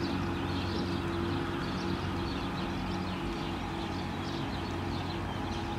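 Steady low drone of an idling engine, with small birds chirping over it.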